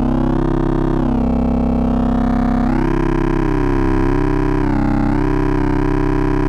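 Eurorack modular synthesizer oscillator holding one steady low note through a wave folder, its tone changing several times as a knob is turned and the harmonics shift.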